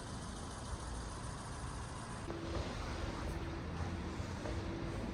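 City traffic noise: a steady low rumble of passing vehicles. A little over two seconds in the sound changes abruptly, and a short low beep repeats several times over the traffic.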